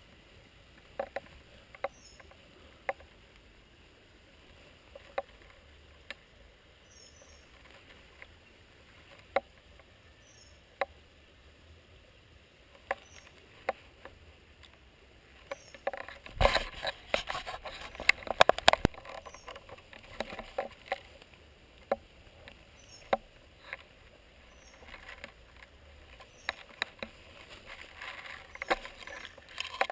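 Airsoft fire: single sharp cracks every second or two, with a quick flurry of shots and rustling about halfway through.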